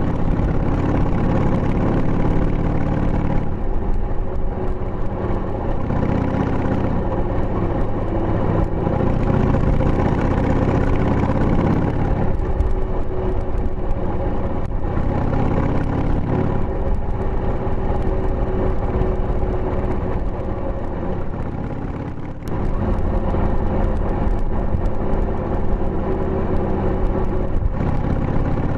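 2000 Harley-Davidson Sportster 883's air-cooled Evolution V-twin running under way through tapered mufflers fitted with baffles. The engine note shifts several times, sags a little around twenty seconds in, and picks up again sharply about twenty-two seconds in.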